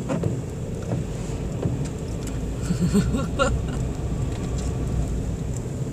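Car cabin noise while driving: a steady low rumble of engine and tyres on the road, with a few faint voice-like sounds about halfway through.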